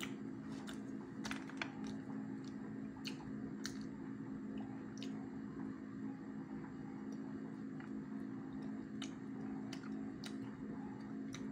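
A person chewing coffee-dunked pandesal, with irregular soft wet clicks and smacks from the mouth, over a steady low hum.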